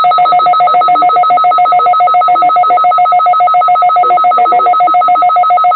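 Weather radio alert tone sounding ahead of the weekly test message: a loud electronic tone in two pitches, pulsing rapidly and evenly.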